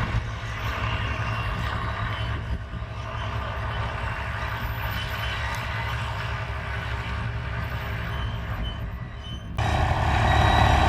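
Tractor engine running steadily, with a low rumble under general outdoor noise; about nine and a half seconds in the sound jumps abruptly louder.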